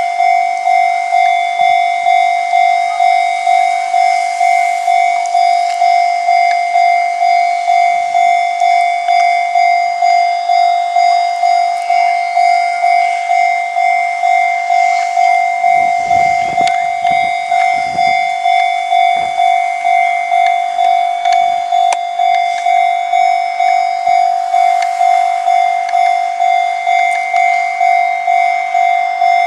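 Japanese railway level-crossing alarm ringing its electronic bell, a steady ding repeating about one and a half times a second. A low rumble passes about halfway through.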